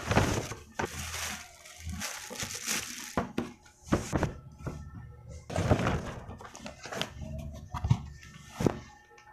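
Plastic wrapping, a paper gift bag and a cardboard box being handled and opened: repeated rustling and crinkling with a few sharp thumps.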